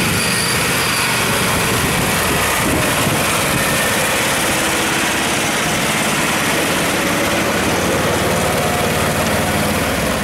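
Homemade mini tractor's UD-2 two-cylinder air-cooled engine running steadily as the tractor drives.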